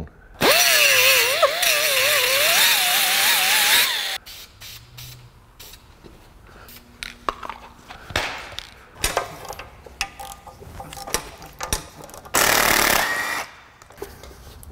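Power grinder smoothing a tack weld on a rusty exhaust flange: a loud grinding noise for about three and a half seconds, with a whine whose pitch wavers as the load changes. Then scattered clicks and knocks, and a second loud burst of noise lasting about a second near the end.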